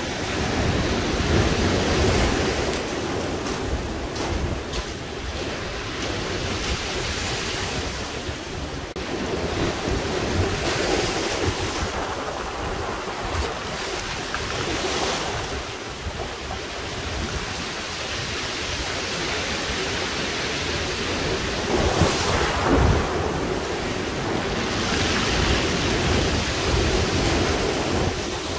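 Ocean surf washing in over a pebble beach, a continuous rush of breaking water and foam that rises and falls with each wave.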